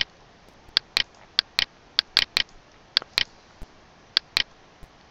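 Computer mouse button clicking: about a dozen short, sharp clicks, mostly in pairs a fraction of a second apart.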